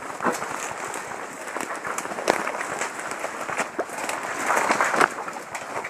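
Dense crackling rustle of a paintball player moving through brush on foot, gear and vegetation brushing together, with a few sharp knocks along the way.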